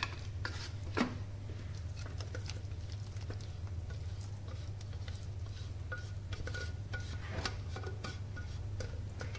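Plastic spatula scraping and knocking against the inside of a Thermomix's stainless steel mixing bowl as thick meat sauce is scraped out, with a sharper knock about a second in. A steady low hum runs underneath.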